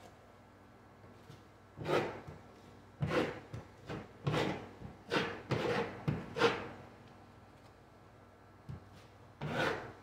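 Short scraping strokes of a drywall knife spreading joint compound on a drywall seam, about eight strokes, most of them bunched in the middle and one more near the end.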